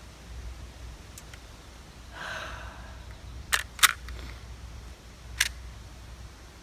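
Sharp mechanical clicks from a rifle being handled: a brief rustle, then two clicks in quick succession about three and a half seconds in, and a single click a second and a half later.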